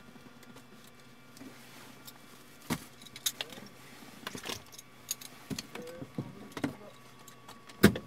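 Scattered clicks, knocks and small rattles of gear and bags being handled inside a parked light aircraft's cabin, with a sharp knock near the end the loudest.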